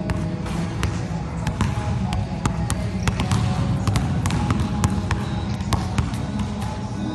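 Basketballs bouncing on a hardwood gym floor: sharp, irregular bounces several times a second from more than one ball, over a steady low rumble.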